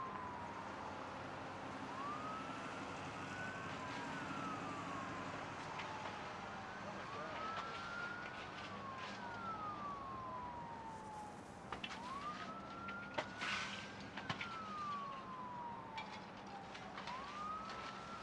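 Emergency vehicle sirens wailing, slowly rising and falling, two of them overlapping at times. A few sharp clicks or knocks sound near the middle.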